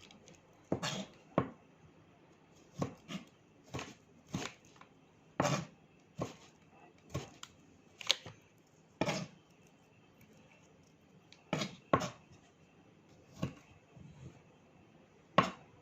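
Knife chopping food on a cutting board: sharp, irregular knocks, often in quick pairs, about one or two a second.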